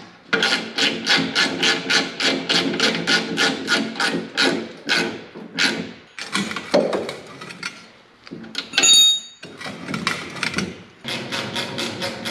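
Hand-tool work on the snowmobile: rapid, regular metallic clicking or tapping, about four strokes a second, in runs broken by short pauses, with a brief high squeal about nine seconds in.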